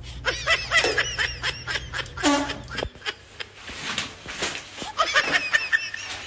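A person laughing in short, high-pitched giggles, over a low hum that cuts off suddenly about three seconds in.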